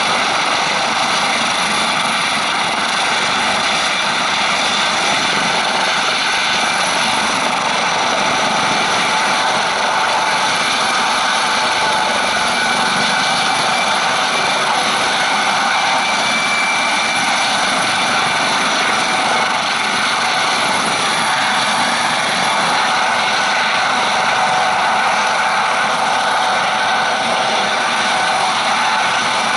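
Eurocopter AS565K2 Panther helicopter's twin turbine engines and rotors running steadily, a continuous loud noise with a high turbine whine and no change in pitch.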